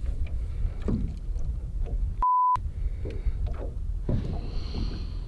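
Low wind rumble on the microphone in a small boat, with a few soft knocks. A little over two seconds in, a short steady censor bleep cuts in and replaces the sound.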